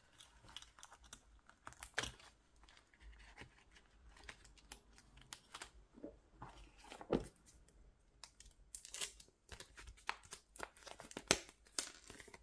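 Clear plastic binder sleeves and paper cards being handled, crinkling and rustling, with scattered light clicks and taps. The strongest rustles come about 2, 7 and 11 seconds in.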